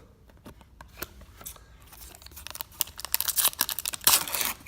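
Foil wrapper of a Pokémon TCG booster pack crinkling and being torn open. It is quiet at first with a few light clicks, then turns into a dense run of crackling from about two seconds in, loudest near the end.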